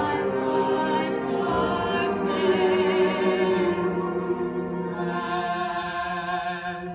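A man singing solo in an operatic style, holding long notes with vibrato. The final long note cuts off sharply at the end.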